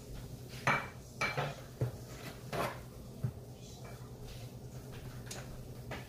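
Kitchen clatter of pots, dishes and utensils: a handful of sharp clinks and knocks in the first three seconds or so, then lighter ticks, over a steady low hum.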